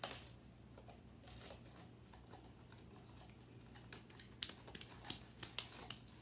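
Faint rustling and crinkling of a blind-box mini figure package being opened by hand, with scattered small ticks and clicks; a sharp knock at the very start and a run of sharper ticks about four to six seconds in.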